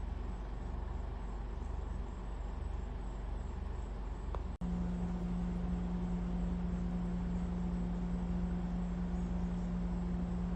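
Steady low rumbling noise. About halfway through it drops out for an instant, and from then on a steady low hum runs with it.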